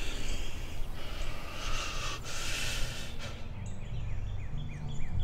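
Outdoor ambience: a steady hiss, then from about three seconds in a run of short falling chirps, about three a second, over a low hum.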